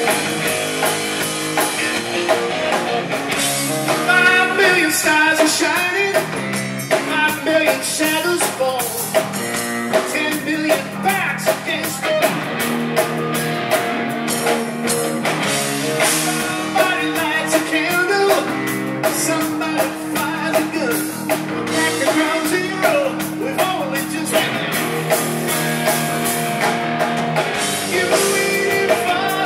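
Live rock band playing amplified electric guitars over a drum kit, with a wavering, bending lead guitar line.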